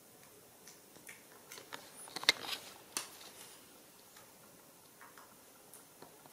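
Scattered light clicks and taps in a quiet room, with one sharp click a little after two seconds in and a softer one about a second later.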